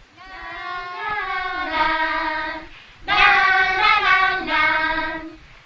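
High, young-sounding voices singing a short melody in two phrases of long held notes, with a brief break about three seconds in.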